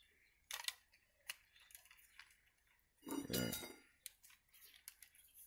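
Faint, scattered clicks and taps of electrical wires and a plastic conduit fitting being handled as the wires are pushed through. A short vocal sound comes about three seconds in.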